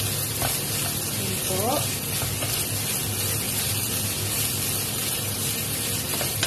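Fried rice and scrambled egg sizzling steadily in hot oil in a wok, stirred and turned with a wooden spatula.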